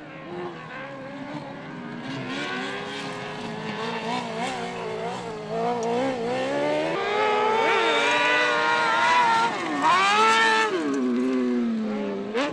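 Car cross racing buggy engine revving high, its pitch climbing through the gears and dropping off the throttle. Near the end it winds down steadily before picking up again.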